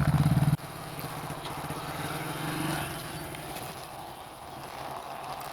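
A toy bike being pushed along by hand, its small wheels rolling with a steady scraping rattle. It is preceded by a loud low buzz that cuts off abruptly about half a second in.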